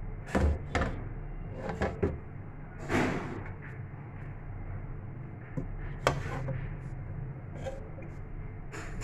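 Several sharp knocks and clatters in a kitchen over a steady low hum. The loudest come in the first three seconds and again about six seconds in.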